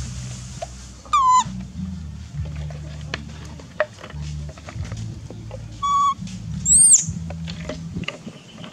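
Baby macaque crying in short, whistle-like cries: one falling cry about a second in, another about six seconds in, and a higher, louder squeal just before seven seconds.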